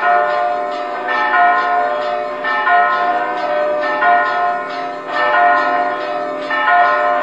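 Large bronze church bell rung by a rope pulled on its clapper, struck at a steady pace about every second and a third, each stroke ringing on into the next.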